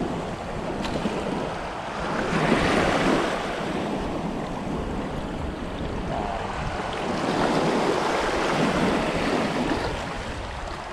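Small waves washing over sandy shallows, swelling louder about two seconds in and again past the middle, with wind on the microphone.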